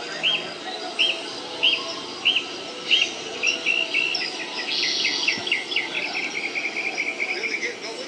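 Bird-like chirps repeating about every two-thirds of a second, then breaking into a fast trill of chirps that slowly falls in pitch from about three and a half seconds in, over a low murmur of background voices.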